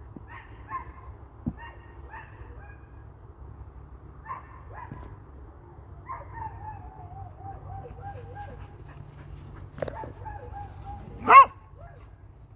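Dog barking: scattered short barks and a long wavering call, then one loud bark near the end, over a steady low rumble.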